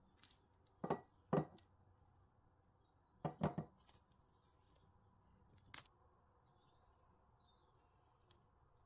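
Light knocks of a glass loaf dish being handled on a countertop: two knocks about half a second apart, then a quick cluster of three, then a single sharp click.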